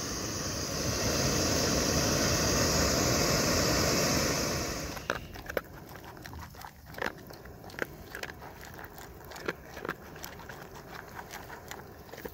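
A backpacking canister gas stove hissing steadily under a kettle, which stops abruptly about five seconds in. After that, a dog crunches dry kibble from a collapsible bowl in scattered sharp crunches and clicks.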